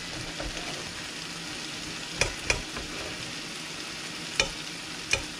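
Diced onion, pepper and tomato sizzling steadily in a frying pan, while a knife cuts raw fish fillets on a ceramic plate, the blade striking the plate in four sharp clicks.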